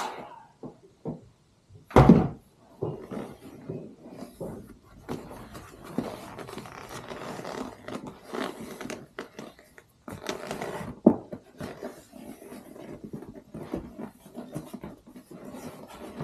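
Vinyl upholstery cover being pulled and stretched over a jet ski seat: irregular rustling, scraping and small clicks, with a sharp thunk about two seconds in and another about eleven seconds in.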